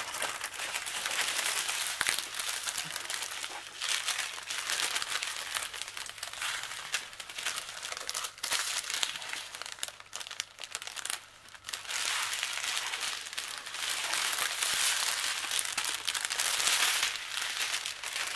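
Thin plastic bags of diamond-painting drills and their clear plastic packaging crinkling and rustling as they are handled, in long stretches broken by a few short pauses.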